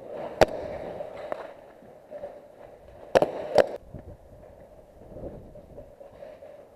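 Four sharp cracks: one about half a second in, another about a second later, and a close pair about three seconds in, over a faint steady background.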